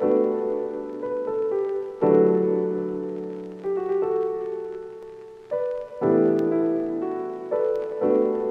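Background music on solo piano: slow, soft chords, each struck and left to ring and fade before the next, every one to two seconds.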